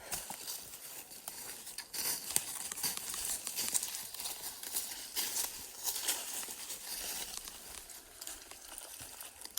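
Irregular crunching and rustling of dry leaf litter and brush underfoot as people walk through the woods.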